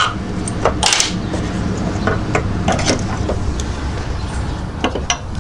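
Several sharp metallic clinks and knocks, the loudest about a second in, as a 2000 Toyota Camry's dog-bone engine mount (torque rod) and its bolts are set by hand into the mount bracket. A steady low hum runs underneath.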